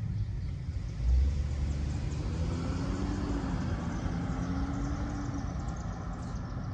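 A Jeep Wrangler driving through the intersection and away: a low rumble comes up about a second in, then its engine hum swells and fades.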